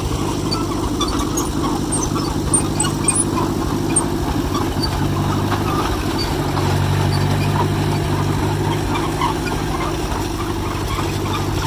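Engine of a John Deere 1010 crawler dozer running steadily, a little stronger for a couple of seconds about halfway through.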